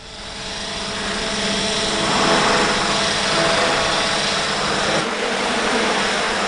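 Quad-rotor drone's propellers and motors whirring as it flies off. The sound builds over the first couple of seconds and then holds steady.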